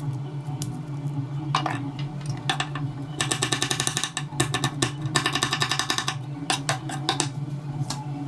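A chef's knife chopping garlic on a bamboo cutting board. Single knocks come first, then two quick runs of rapid chopping about three and five seconds in, over a steady low hum.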